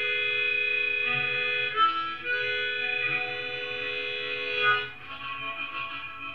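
Blues harmonica in C playing two long held chords, each a couple of seconds, with a short break between them, then shorter, softer notes near the end.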